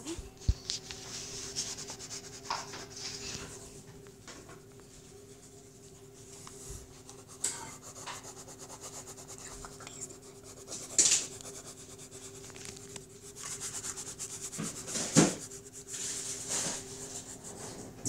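Orange colored pencil rubbing and scratching on a paper colouring page in repeated short strokes, with a few louder knocks along the way.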